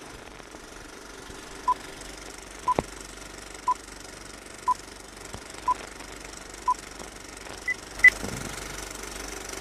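Film countdown leader beeps: six short beeps at one pitch, one each second, then two higher beeps, the last the loudest, over a steady hiss. A low rumbling noise comes up just after the last beep.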